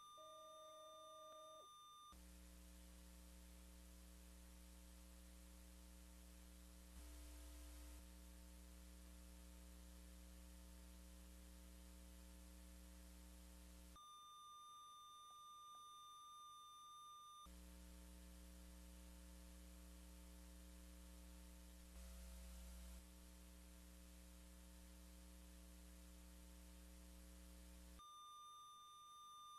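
Faint steady electronic tones: a lone high beep-like tone alternates with a held low chord of several steady tones over a low hum. The chord comes in about two seconds in, gives way to the high tone for a few seconds past the middle, returns, and the high tone comes back near the end.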